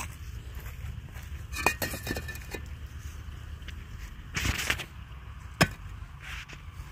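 Wind rumbling on the microphone, with a few scattered clicks and knocks. A short noisy rustle comes about four and a half seconds in, and the sharpest click about a second later.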